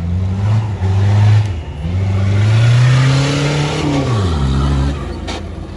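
Off-road 4x4 engine revving in bursts: a short rev, then a long climb in pitch that drops off steeply about four seconds in. A single sharp knock comes near the end.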